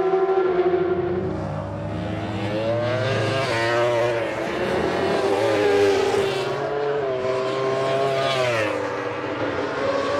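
Racing engines of several 1000 cc superbikes at full speed. Their pitch climbs as they accelerate and drops sharply as the bikes pass, about a second in and again near the end.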